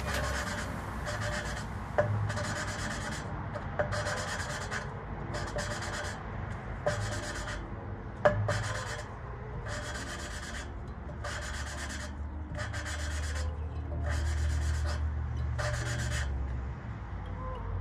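An engine valve being hand-lapped into its seat in an LS cylinder head: a lapping stick twisted back and forth grinds the valve face against the seat through gritty valve-grinding compound, a scratchy rasp repeating about once a second, with a few sharp clicks. The lapping grinds pits out of the seat and valve face so the valve seals fully for good compression.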